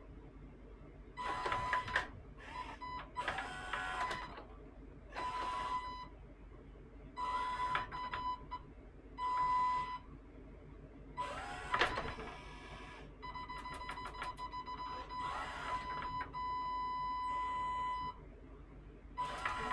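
Gear motors of a 3D-printed robot arm's shoulder and elbow joints whirring in about eight short bursts of a second or two as the arm swings to new positions, with a steady high-pitched whine between the moves.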